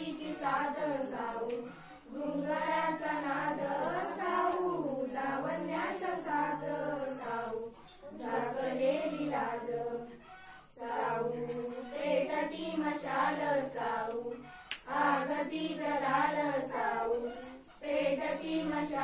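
A group of schoolgirls singing an awareness song together, in phrases broken by short pauses about every few seconds.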